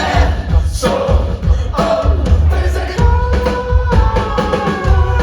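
A live indie rock band playing loud, with singing over a pulsing heavy bass beat. Long held notes come in about three seconds in.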